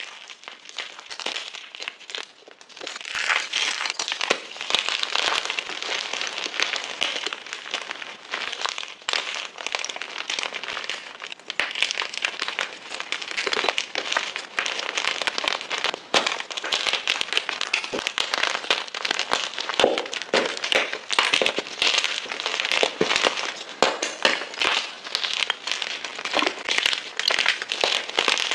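Fresh gym chalk blocks being crushed and crumbled, a dense run of dry crunches and crackles that grows louder about three seconds in.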